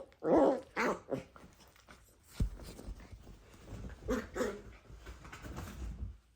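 Dachshund puppies play-wrestling: short growls and yips in quick runs, with a thump about two and a half seconds in and scuffling between the calls.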